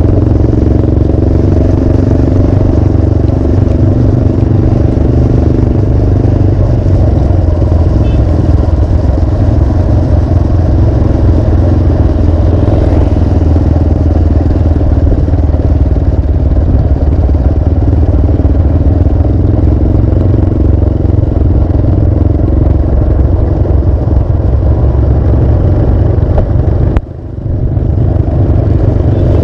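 Motorcycle engine running steadily at light throttle while riding. The sound drops briefly for about a second near the end, then picks up again.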